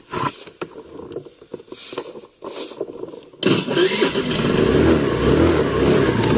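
A few light clicks and knocks, then about three and a half seconds in a CTM50-QT7 scooter's engine starts and runs steadily and loudly.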